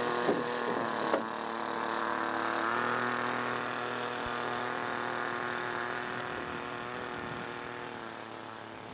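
Small model airplane engine running at a steady high pitch on the takeoff run. Its pitch steps up a little about three seconds in, then it fades as the plane moves away. Two sharp clicks sound within the first second or so.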